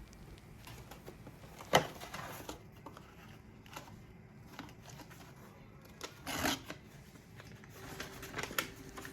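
Scattered light clicks and taps of small objects being handled, with one sharper click about two seconds in and a brief noisy sound a little past six seconds.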